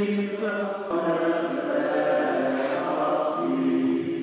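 A choir singing a slow hymn in long held chords, the chord changing about a second in and again near the end.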